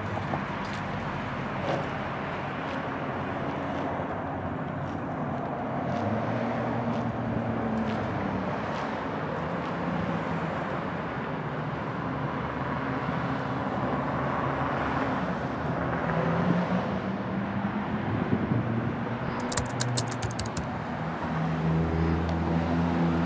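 Ford F-150 pickup driving slowly, its engine running at low revs with the pitch shifting as it moves, getting louder near the end as it pulls closer or speeds up.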